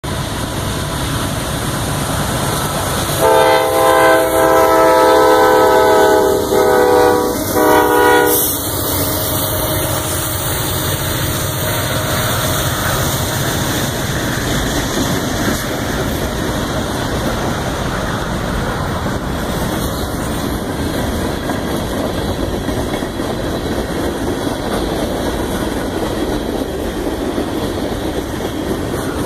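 A CSX locomotive's air horn sounds a chord of several notes: a long blast about three seconds in, then two short ones, the last ending about eight seconds in. The train then keeps rolling past, with a steady rumble and wheel clatter on the rails.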